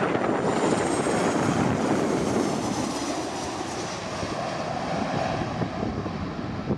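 Boeing 737 jet airliner passing low overhead on landing approach, gear down: a steady rushing jet-engine noise, with a faint high whine falling in pitch over the first few seconds as it goes by.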